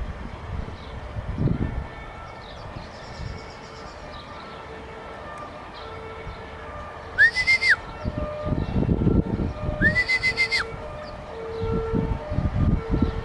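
Two whistles about two and a half seconds apart, each sliding up, holding briefly and then dropping off sharply, over gusts of wind rumbling on the microphone.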